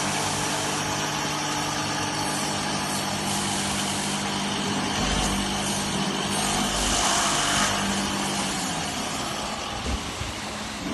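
Remax-1385 CNC router running, a steady motor hum under a noisy machine sound, with brief louder hissing stretches about a third and two-thirds of the way in.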